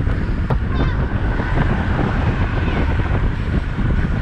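Wind buffeting an action camera's microphone on a moving road bike: a loud, steady rush, heaviest in the low end.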